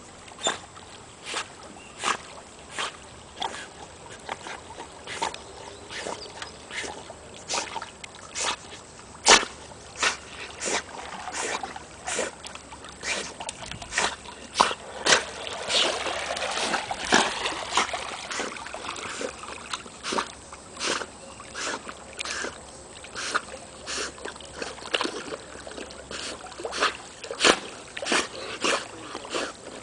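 Water splashing around a canoe, with a Deutsch Drahthaar (German wirehaired pointer) swimming close alongside. A sharp splash or knock comes about every three-quarters of a second, like paddle strokes. About halfway through there is a stretch of heavier rushing, churning water.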